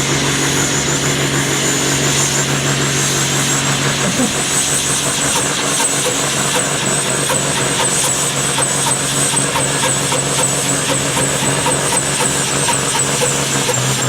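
Heavy truck engine running steadily, with a thin high whine held above it.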